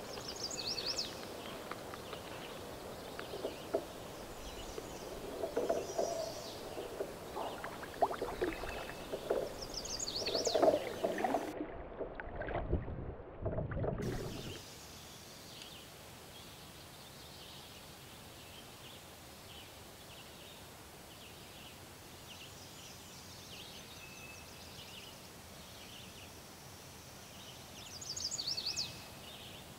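Small knocks and rustles from handling gear in a kayak, over a light outdoor background with songbirds chirping. About halfway through, the sound drops to a quieter steady outdoor background with scattered bird chirps, and a louder chirping phrase comes near the end.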